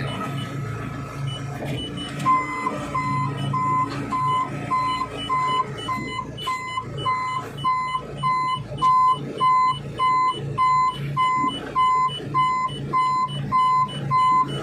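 Manitou telehandler's warning beeper sounding a steady train of short beeps, about two to three a second, starting about two seconds in, over the machine's engine running with a steady hum.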